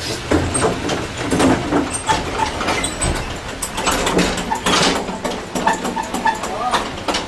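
Metal shelving cart on casters rattling and clattering as an automated guided vehicle carries it across the floor and over the elevator threshold, with irregular knocks and short high chirps here and there.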